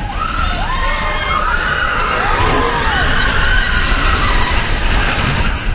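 Several riders screaming in overlapping, wavering voices over the low rumble and rush of a steel roller coaster train running through a dark section of track. The screams fade out near the end.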